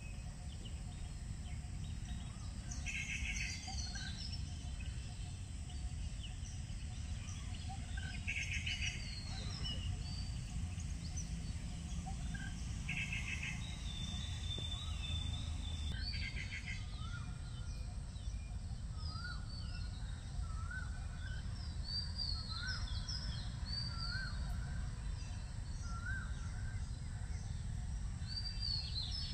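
Wild birds calling over a steady low background rumble. A short trilled call repeats about every five seconds in the first half; from about halfway there is a run of short rising chirps, roughly one a second, with higher chirps above them.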